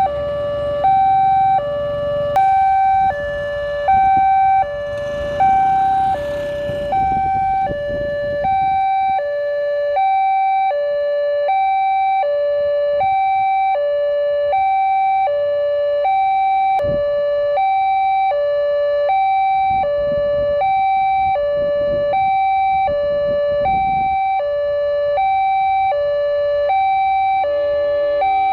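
Automatic railway level-crossing early warning alarm through TOA horn speakers: a slow two-tone hi-lo siren stepping steadily between a higher and a lower tone, each held about half a second, warning that a train is approaching. Road traffic rumbles past under it for the first several seconds.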